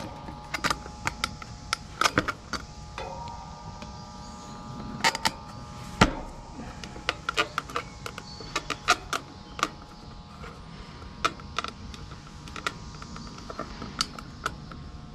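Irregular light clicks and knocks of a plastic Carrier nameplate badge being handled and pressed against the wire fan grille of a central air conditioner's condenser, with one sharper knock about six seconds in. A faint steady hum of several tones runs underneath.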